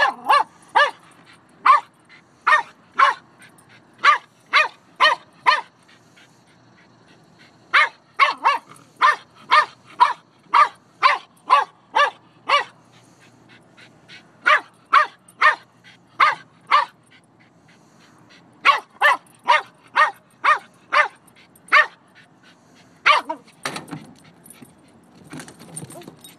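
Dog barking at a crab: runs of short, sharp barks, about two a second, broken by brief pauses.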